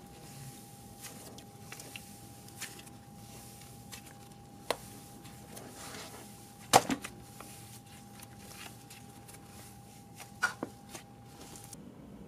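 Thick brown slime being stretched, folded and squeezed by hand, with scattered sticky clicks and pops. The loudest pop comes a little past the middle, and another pair comes about ten seconds in.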